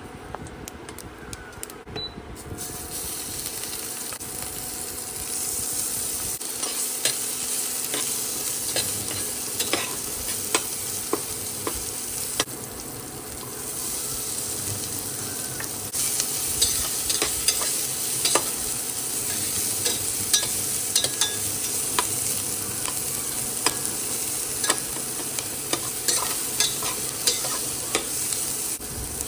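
Food sizzling as it fries in a pan, with a utensil repeatedly clicking and scraping against the pan as it is stirred. The sizzle comes in about two seconds in and eases briefly near the middle.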